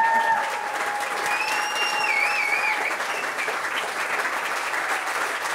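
Audience applauding, with a couple of long held cheers over it in the first three seconds.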